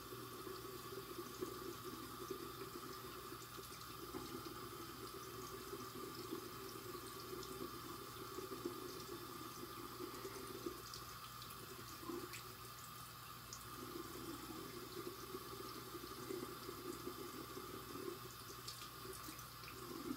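Water tap running steadily into a sink, with a few faint clicks over it.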